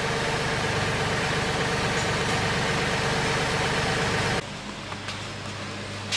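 Mahindra 1526 tractor's diesel engine running steadily with a rapid even pulse. About four seconds in it cuts off abruptly to a quieter steady hum, with a single click near the end.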